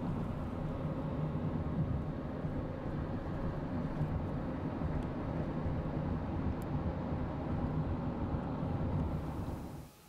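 Steady low road and engine rumble heard from inside a moving car, dropping away just before the end.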